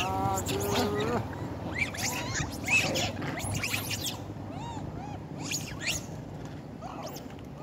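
A troop of long-tailed macaques giving many short, high squeaks and chirps, several rising then falling in pitch, with a longer wavering call at the very start.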